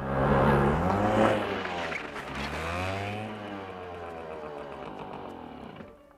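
A motor vehicle's engine going by close, its pitch falling, rising briefly a little after two seconds, then falling again as it fades out near the end.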